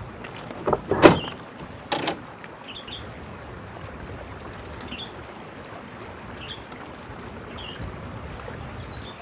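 A few loud knocks and clunks, about a second and two seconds in, as gear is handled at the open back of a pickup's camper shell. After them comes a steady background hiss with faint short high chirps every second or so.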